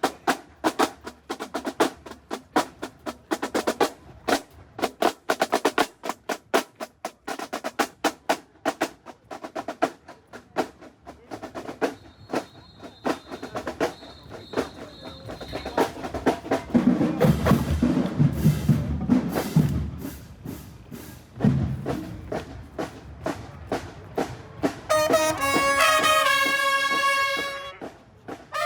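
Marching band drumline playing a cadence, with rapid snare strokes for the first half and heavy bass drums coming in about midway. Near the end the brass section enters with held chords.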